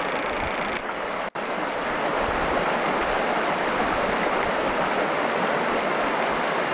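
Steady rush of a mountain stream flowing over rocks, broken by a split-second dropout about a second in.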